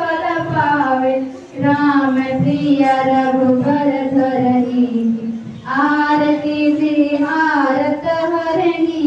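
A large group of schoolgirls singing a prayer song in unison, in long held notes, breaking briefly for breath about a second and a half in and again about five and a half seconds in.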